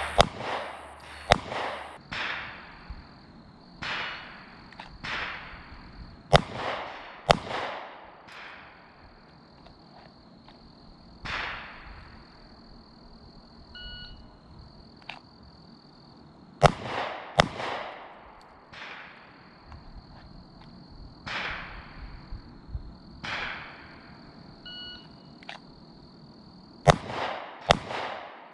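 Glock 27 .40 S&W subcompact pistol firing single shots at an unhurried, irregular pace, several in quick pairs, each sharp crack followed by a short echoing tail: slow aimed fire to sight in a red-dot optic.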